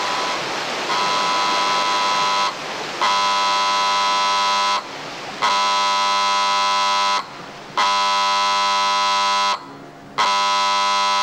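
Electric warning buzzer sounding five long blasts, each lasting nearly two seconds with about half a second between them. Rushing stream water fades out under the first few seconds.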